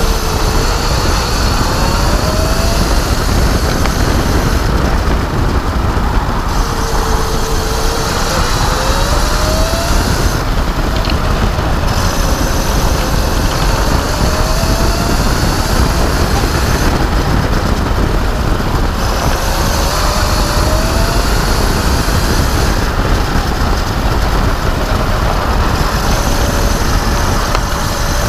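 Electric racing kart at speed: the electric motor's whine rises and falls several times with its speed through the corners, over heavy wind rumble on the onboard microphone.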